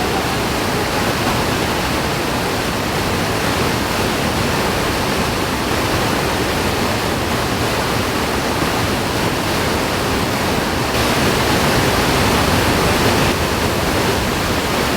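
Waterfall: a steady, loud rush of falling water, swelling slightly for a couple of seconds past the middle.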